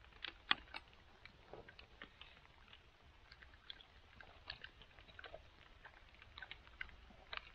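A person chewing and biting into roast chicken close to the microphone: a run of soft, irregular clicks, the loudest about half a second in.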